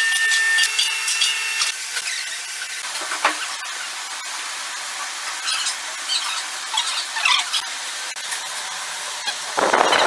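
Packaging machinery noise: a steady hiss with high squealing tones for the first second or two, light crinkling of foil sachets being handled in the middle, and a short loud rush of noise near the end as the vacuum packaging machine works.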